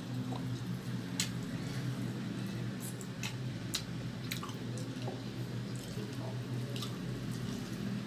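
Close-miked eating of roast chicken: wet, squishy chewing with several sharp mouth clicks and smacks, over a steady low hum.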